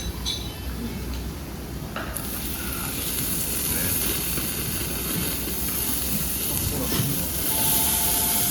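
Meat sizzling on a hot tabletop grill. The hiss comes in sharply about two seconds in and grows louder.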